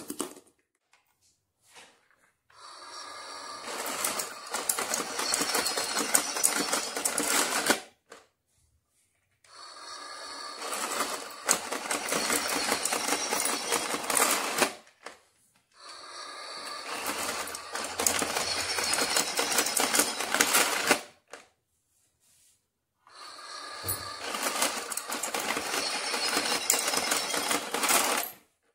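Motorized Halloween candy bowl running its moving skeleton hand: a rapid mechanical whirring rattle in four bursts of about five seconds each, with short pauses between. A single knock comes at the very start.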